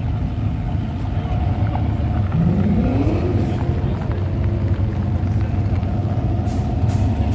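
Car engine rumbling steadily, with one rev that rises in pitch about two and a half seconds in.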